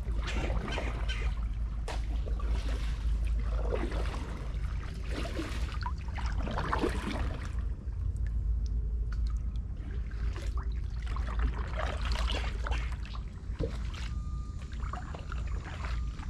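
Kayak paddle strokes dipping, splashing and dripping water about once a second, over a steady low rumble. A faint steady tone comes in near the end.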